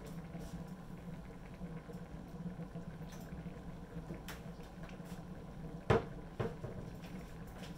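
Cheese sauce simmering in an electric wok over a steady low hum, with two sharp knocks about six seconds in.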